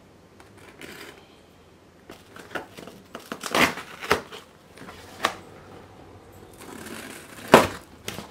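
A large cardboard shipping box being opened by hand: rustling and scraping of cardboard and packing, broken by a series of sharp knocks and cracks, the loudest one near the end.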